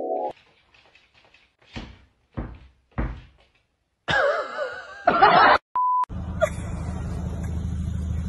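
Three dull thunks, then a loud, shifting burst of sound and a short steady beep. From about six seconds in, a car engine idles steadily.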